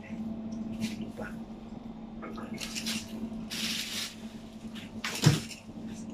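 Wet fish being handled and lifted: squishy, dripping handling noises, a brief rush of noise about three and a half seconds in and a thump about five seconds in, over a steady low hum.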